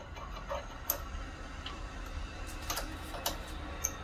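Irregular light metallic clicks and ticks as a 6-32 tap in a T-handle tap wrench threads a hole in a lathe-held standoff, with the lathe chuck turned by hand.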